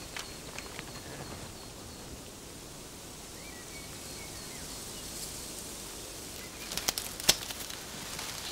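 Outdoor ambience: a steady background hiss with faint bird chirps. Near the end come a few sharp clicks or knocks, the last of them the loudest.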